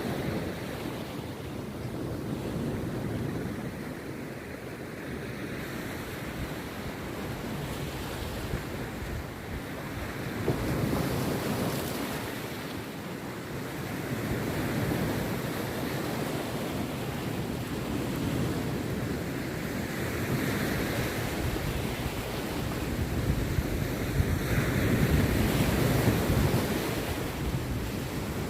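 Rough sea waves breaking on a beach, a continuous wash of surf that swells as each set of waves comes in, loudest near the end.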